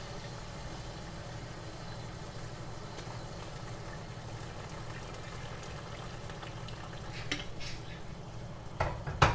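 Red berbere-and-onion sauce sizzling and bubbling in a pot after hot water has been stirred in, stirred with a wooden spoon. A few sharp knocks of the spoon against the pot come near the end, the loudest just before it finishes.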